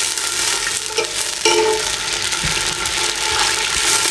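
Whole spices sizzling in hot oil in a stainless steel pressure cooker, a steady frying hiss, stirred with a metal slotted spoon.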